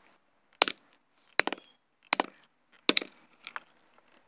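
A mallet striking a plastic toy motorbike on concrete: five sharp blows, about one every three-quarters of a second, the last one lighter.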